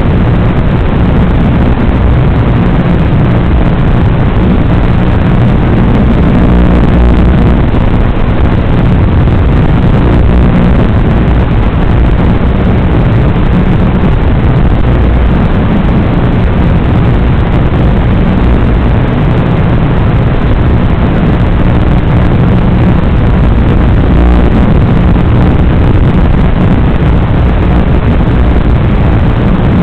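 Loud, even rushing noise on the onboard FPV audio of an RC Formula 1 model car. It has no clear pitch and does not rise or fall as the car drives.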